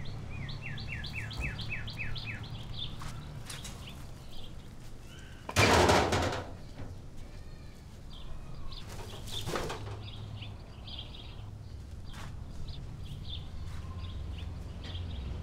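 Small birds chirping in runs of quick repeated notes over a low steady background hum. A loud burst of noise lasting under a second cuts in about six seconds in, and a weaker one comes about nine and a half seconds in.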